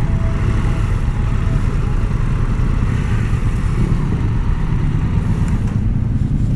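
Triumph Tiger 1200 Rally Explorer's three-cylinder engine running as the motorcycle is ridden, a steady low rumble.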